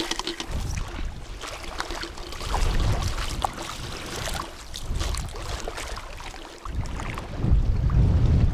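Wind buffeting the microphone in low rumbling gusts, strongest near the start and again near the end, with light scattered clicks and rustles of handling between them.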